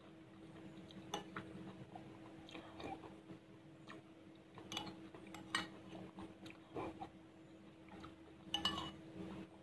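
Metal spoon clinking and scraping against a ceramic bowl at irregular intervals, with soft chewing of pumpkin kolak; the loudest clinks come near the end. A faint steady hum runs underneath.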